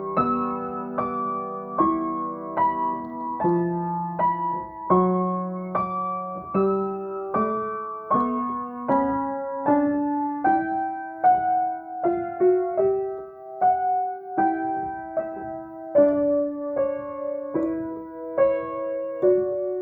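Solo acoustic piano improvising slow, gentle chords and melody in the middle register, a new note or chord struck about every three-quarters of a second and left to ring.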